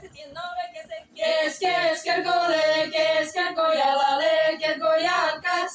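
Seto folk ensemble singing the song's refrain in women's voices, starting softly and singing out loud with long held notes from about a second in.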